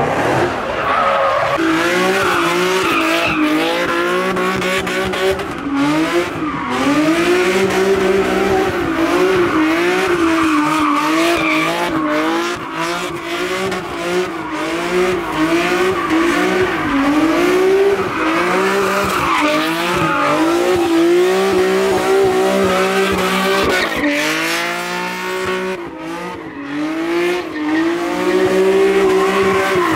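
A car doing donuts: the engine held at high revs, its pitch wavering up and down as the throttle is worked, over the screech of spinning, smoking tyres.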